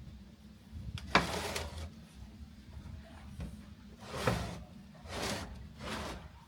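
Several short scraping, sliding sounds, with a sharp knock about a second in, over a low steady hum.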